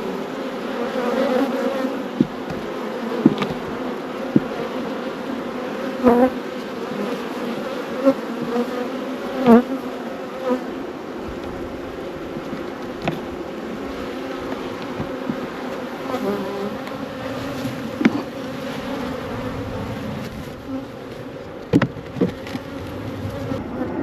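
Honey bees buzzing in a steady drone around opened hives, with a dozen or so short, sharp knocks and clicks scattered through it.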